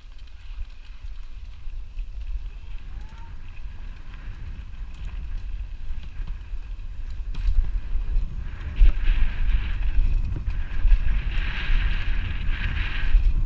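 Wind buffeting a helmet camera's microphone while a mountain bike rolls and rattles down a dirt trail, getting louder as speed builds, with a rougher, harsher noise from about two-thirds of the way in.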